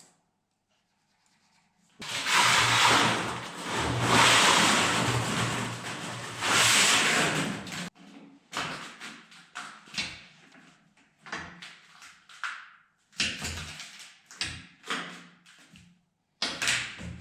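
A loud workshop machine runs for about six seconds with a low hum under it, then stops. A string of short, irregular knocks and scrapes follows, like metal being handled.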